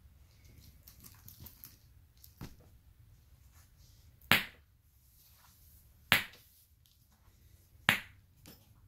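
Metal boules balls knocked together three times, about two seconds apart, each a sharp metallic clack; a fainter tap comes a couple of seconds before the first.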